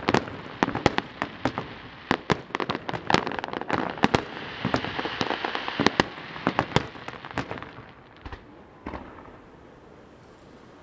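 Fireworks display: aerial shells bursting in quick succession, a dense string of sharp bangs mixed with crackling. The bangs thin out after about eight seconds to a couple of last reports, then fall quieter.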